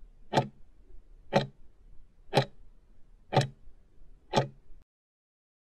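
Countdown-timer tick sound effect: five sharp clock-like ticks, one a second, then it stops.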